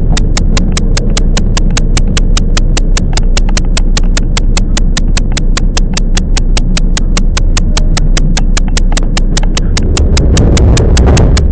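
10030 series electric train running, with a steady low rumble, over which a sharp clicking repeats evenly about five times a second. The rumble swells briefly near the end.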